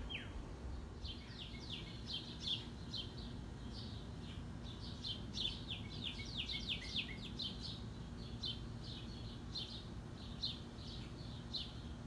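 Small songbirds chirping: many short, quick chirps repeated in runs, over a faint steady low hum.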